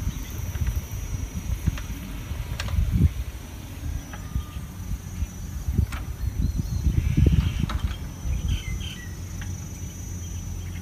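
Outdoor ambience of bushes: a low uneven rumble of noise, a steady high insect drone, and a few faint bird chirps about seven to nine seconds in.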